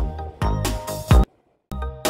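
Background music with a steady beat of drum hits. It cuts out completely for a moment just past halfway, then starts again.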